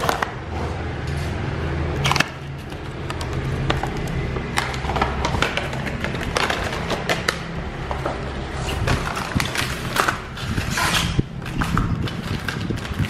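Cardboard toy box and clear plastic blister tray being handled and pulled open, giving irregular crinkles, scrapes and sharp clicks.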